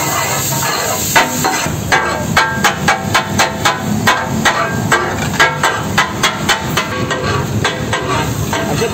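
Metal spatula blades striking a large flat griddle (tawa) as fish katakat is chopped on it: a rhythmic, ringing clatter of about three strikes a second. A steady sizzling hiss from the hot griddle lies under it.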